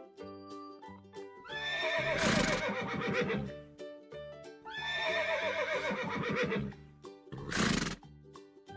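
Two horse whinnies, each about two seconds long with a wavering, falling pitch, over light background music; a short breathy burst comes near the end.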